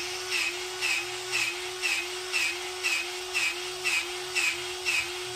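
Battery-powered grease gun running steadily, its pump clicking about twice a second as it forces grease into a grease zerk on the mower deck.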